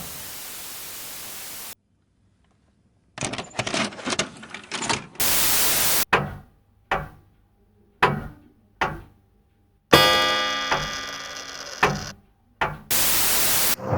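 Hiss, a moment of silence, then fast small metallic clicks and rattles of locks being picked. A burst of static follows, then a string of heavy thuds about a second apart, one louder hit with a long ringing decay, and a second burst of static near the end.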